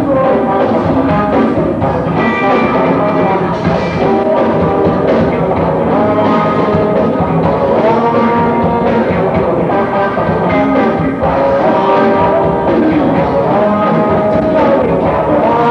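Live rock band playing loudly, a bass guitar and drum kit among the instruments, with the music running continuously.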